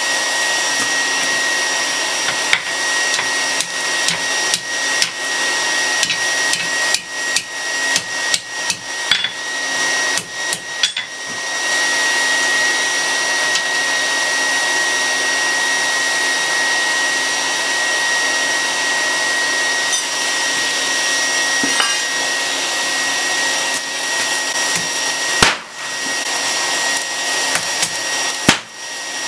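Hammer blows on red-hot, fluxed rebar on an anvil during a forge weld, over a steady roar of air like a forge blower. A quick run of about fifteen blows comes first, then a long stretch of only the steady roar, then two single blows near the end.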